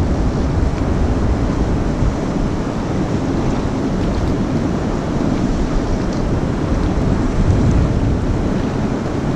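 Steady rush of fast, turbulent river water, with wind buffeting the microphone in a low rumble.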